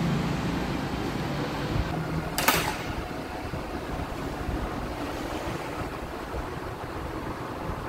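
Steady workshop background noise, like a running fan, with one sharp clink of a hand tool on the motorcycle's brake parts about two and a half seconds in.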